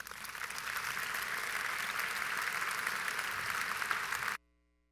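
Audience applauding, a dense patter of many hands clapping that swells up and then cuts off abruptly near the end.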